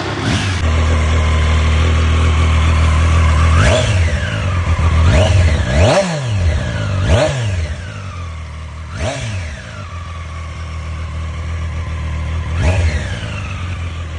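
Triumph Street Triple's three-cylinder engine through its stock exhaust, idling and then blipped about six times. Each blip is a quick rise in revs that falls straight back to idle, and three of them come close together in the middle.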